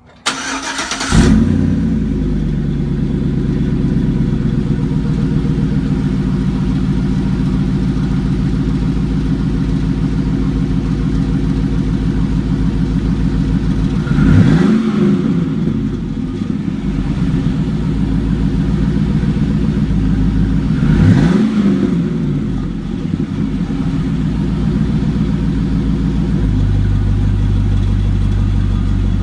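GMC Sierra pickup engine starting and catching with a short flare of revs, then idling through its exhaust. The throttle is blipped twice, each a quick rise and fall in pitch, and the idle settles lower near the end.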